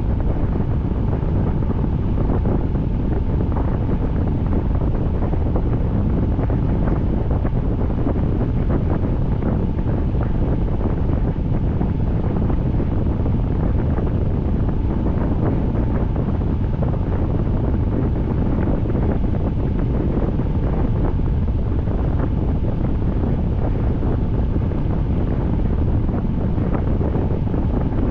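Steady rainfall: a dense, even hiss with a strong low rumble that does not let up.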